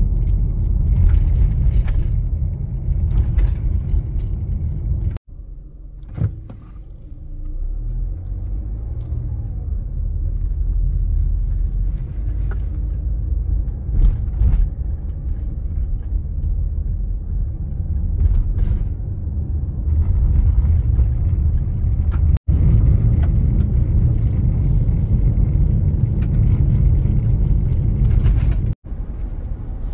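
Road noise heard inside the cabin of a 2016 Mazda CX-5 driving on a bridge deck and gravel roads: a steady low rumble of tyres and engine with scattered knocks and ticks. It breaks off sharply three times and is quieter for a few seconds after the first break.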